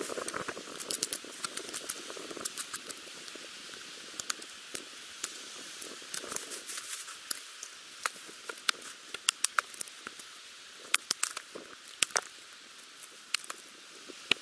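Sharp, irregular clicks and light knocks of small split sticks of wood being handled and set down, over a steady hiss. A few louder knocks come in the second half.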